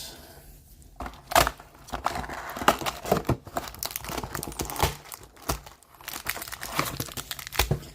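Plastic wrapping and card packaging crinkling and tearing as a sealed box of Upper Deck trading cards is opened by hand, in a string of irregular rustles and sharp crackles.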